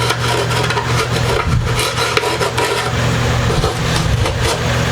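Rough edges of a pickup cavity in a plywood guitar body being smoothed, with irregular scraping strokes over a steady low hum.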